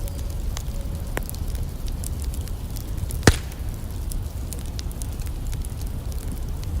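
Campfire burning over a steady low rumble, crackling with scattered small pops, and one loud sharp pop about three seconds in.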